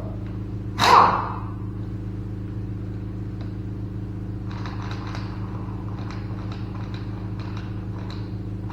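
Pneumatic air impact wrench fired in a short burst about a second in and again at the very end, run lightly just to seat the motor's cover bolts without spreading the gasket. Light clicking of parts and tools comes between, over a steady hum.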